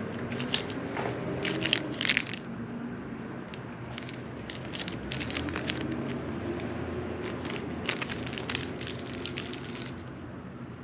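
Irregular handling noises: scattered clicks, scrapes and rustles, as of hands working with small parts and tools, over a low steady hum.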